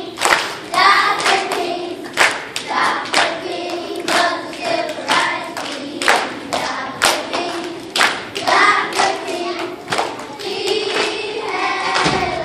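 Young children's choir singing together while clapping a steady beat, about two claps a second; the clapping stops near the end while the singing goes on.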